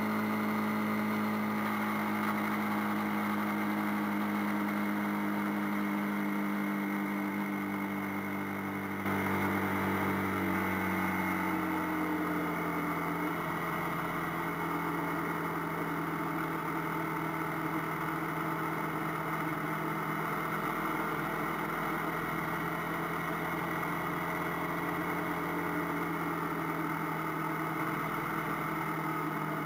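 AKT TT 250 Adventour motorcycle engine running while riding. Its note sinks slowly over the first dozen seconds, then holds steady. It gets a little louder about nine seconds in.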